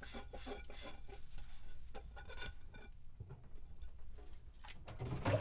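Dishes being washed by hand at a kitchen sink: faint scrubbing, small clicks of crockery and pattering water, busiest in the first half with a lull in the middle.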